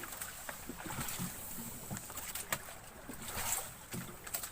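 Water sloshing and lapping against the hull of a small boat, with scattered short knocks and splashes.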